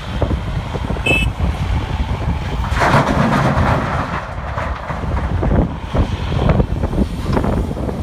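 Large excavator's diesel engine running under load as it dumps a bucket of broken concrete into an articulated dump truck. The rubble crashes into the steel bed about three seconds in, with scattered clunks of concrete and steel.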